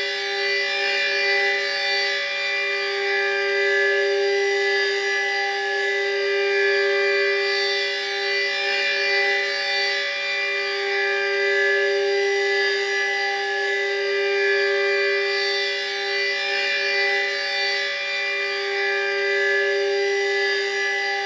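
Super Sirex 15 civil-defence siren sounding a steady-pitched tone as its three-minute alert test runs on. The tone swells and fades in loudness about every four seconds.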